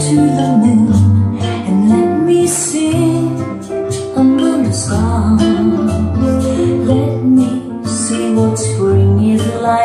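A song played through a pair of Bose 601 Series III speakers driven by a Pioneer M-22 Class A power amplifier: singing over a bass line that moves from note to note.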